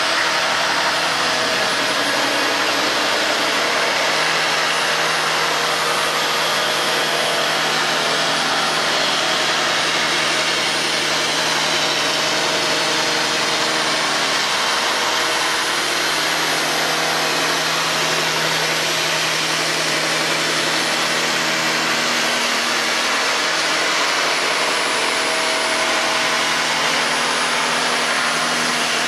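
Handheld electric belt sander running steadily while sanding a long curved wooden moulding, a loud, even machine noise with a faint hum that shifts slightly in pitch as the load changes.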